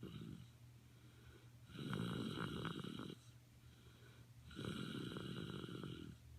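Snoring: two long, loud snores about three seconds apart, each lasting about a second and a half, with a fainter snore tailing off at the start.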